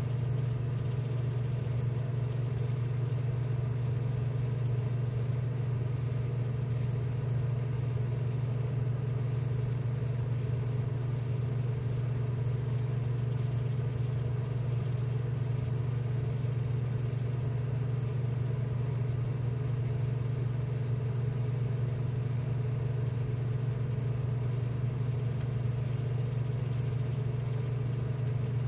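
Steady, unchanging low machine hum.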